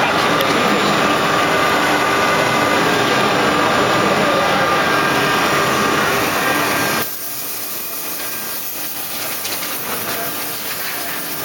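Woodworking machinery running with a steady noise and a faint whine in it, which drops sharply in level about seven seconds in and carries on more quietly.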